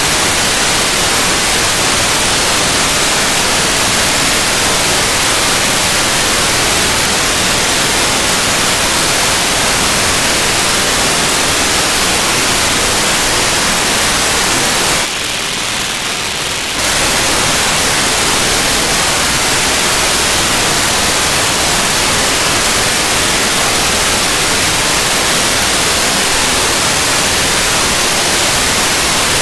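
Steady hiss of static from a radio receiver's demodulated audio, tuned to a satellite's 437.6 MHz amateur downlink. About halfway through, the hiss turns thinner and a little quieter for under two seconds, then returns.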